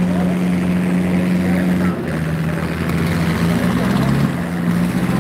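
Diesel tractor engine running hard under full load in a tug-of-war pull, a loud steady drone. About two seconds in the engine note drops as it lugs down, then climbs back near the end.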